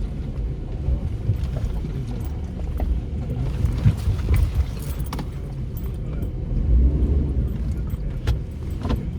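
A four-wheel drive driving a rough track, heard from inside the cabin: a steady low engine and tyre rumble with scattered knocks and rattles from the body and loose gear.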